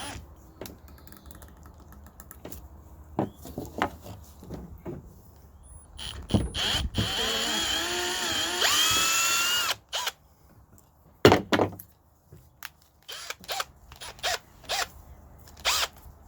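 Electric drill running under load for about four seconds, its pitch wavering and then rising, while working out a broken bolt in a water pump. Scattered clicks and knocks of metal parts being handled come before and after it.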